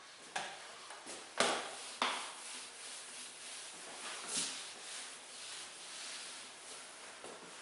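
Whiteboard duster rubbing marker off a whiteboard in repeated wiping strokes. There are three sharp knocks in the first two seconds.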